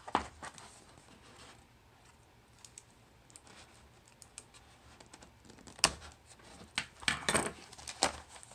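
Hands handling a cardboard mailer box while its sealing tape is slit with a craft blade: soft scrapes and scattered clicks, with a few sharper knocks about six seconds in and again near the end.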